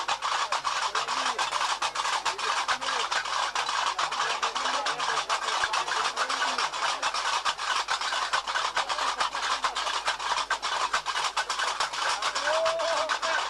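Diwan ritual music: a fast, unbroken clacking of metal castanets (qarqabou), with faint chanting voices beneath. A clearer sung or played pitched line comes in near the end.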